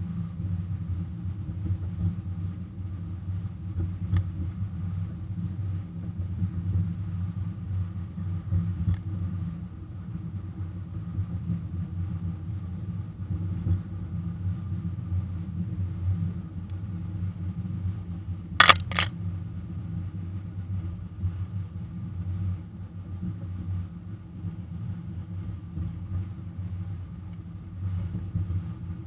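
Ride-on miniature railroad locomotive running along its track: a steady low rumble from its drive and wheels, heard through the hood it is mounted on. A sharp double click about two-thirds of the way through.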